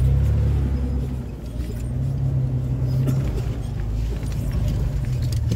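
Jeep engine running at low speed as it crawls over rock, easing off about a second in and picking up again, with a few light clicks and rattles.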